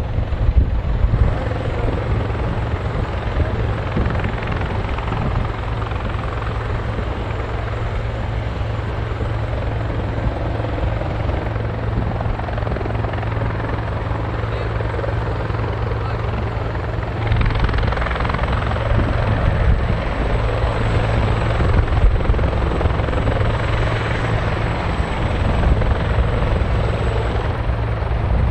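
Bell CH-146 Griffon military helicopter running, with a steady low rotor drone under a broad turbine and rotor-wash noise. The sound grows louder and brighter about 17 seconds in.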